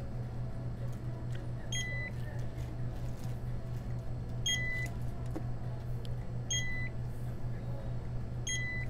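Checkout barcode scanner beeping four times, short single beeps a couple of seconds apart, each confirming a good read of a coupon or receipt barcode. A steady low hum runs underneath.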